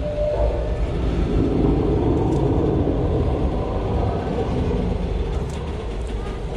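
Tour tram running steadily at low speed, a continuous rumble heard from on board.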